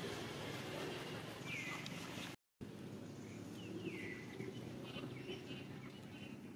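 Two short high animal calls, each falling in pitch, about two seconds in and again about four seconds in, over a steady outdoor background. The sound cuts out completely for a moment about two and a half seconds in.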